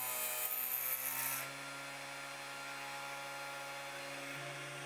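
3018Pro CNC spindle running a 1 mm drill bit into a copper-clad circuit board. In the first second and a half a louder rasping hiss comes as the bit bores through the board, and the motor's whine sags in pitch under the load. Then it settles back to a steady whine.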